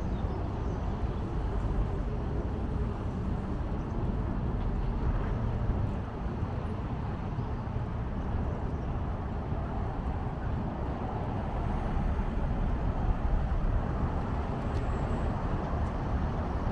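Steady road traffic along a city avenue, heard from a moving bicycle with a constant low rumble of wind on the microphone.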